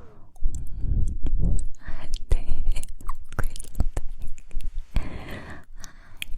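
Close-miked ASMR mouth sounds: a rapid string of wet lip and tongue clicks and smacks, with breathy hissing stretches about two and five seconds in.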